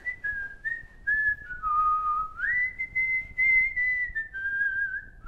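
A man whistling a slow tune through pursed lips, holding each note and sliding between them, with a dip to a lower note about two seconds in.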